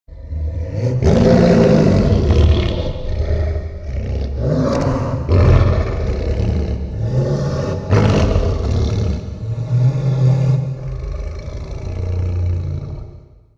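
Kaiju roar sound effect for Destzilla: one long, loud roar of about thirteen seconds out of silence, rising and falling in several swells and fading out near the end.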